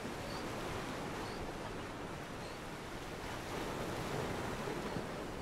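Sea surf washing in a steady rush, with wind buffeting the microphone.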